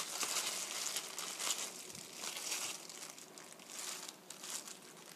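Crinkling of a thin disposable plastic glove on the hand holding raw chicken, with a kitchen knife slicing the meat on a plastic cutting board.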